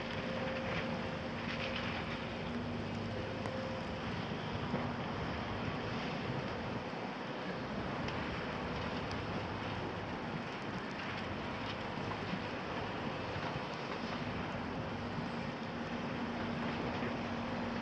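Volvo EC300 crawler excavator's diesel engine running as the machine slews, over a steady outdoor haze of site noise. A steady engine hum is clear for the first few seconds, drops back in the middle and returns near the end.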